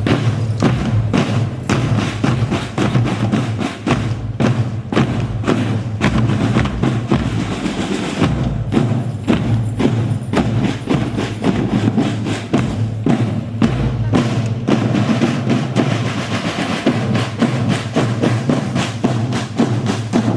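Music with a steady percussive beat: regular sharp drum strikes over a constant low bass line.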